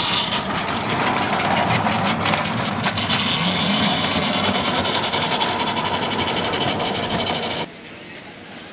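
Ride-on miniature railway locomotive and its wagon passing close by: a small drive running with a steady mechanical whir while the wheels click over the rail joints. The sound cuts off sharply near the end.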